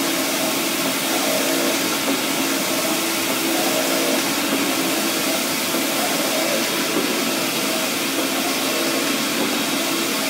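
EFI VUTEk 320 UV printer running: the print carriage shuttling back and forth across the bed, a steady whir and hiss with a swell recurring every couple of seconds as the carriage passes.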